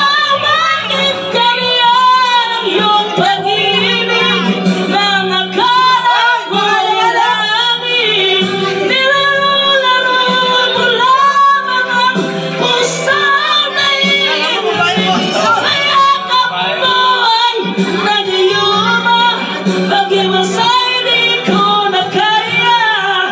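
A man singing karaoke into a corded microphone, his voice amplified over a karaoke backing track, holding and bending long, high notes of a slow ballad.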